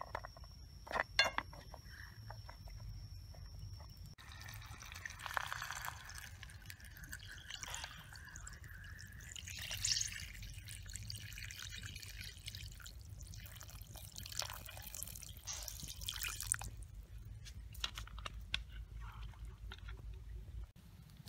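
A couple of sharp clicks as clam shells are set into a metal frying pan, then a stream of water poured into the pan over the shells for about twelve seconds, followed by scattered drips and ticks.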